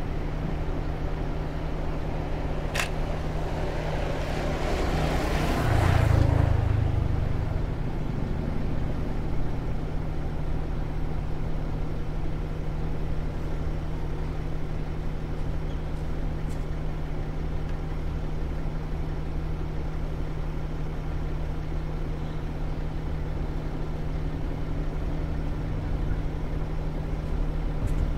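A vehicle passing, swelling up and fading over about three seconds, over a steady low hum. A single sharp click comes about three seconds in.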